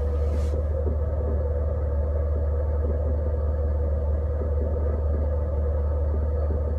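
Jeep Cherokee engine idling, with a steady medium-to-low pitched spinning sound over a constant low hum. The owner cannot place the noise; to him it sounds almost like power steering, and he has been told it may be air in the coolant lines.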